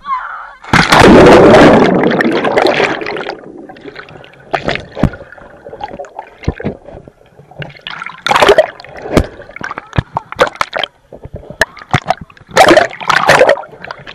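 Pool water splashing around a camera in a waterproof case as it goes in and out of the water: a loud plunge about a second in that fades over two seconds, then a string of short, irregular splashes and gurgles.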